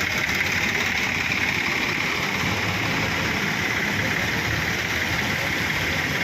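Tractor engine running steadily at idle, under a steady rushing hiss.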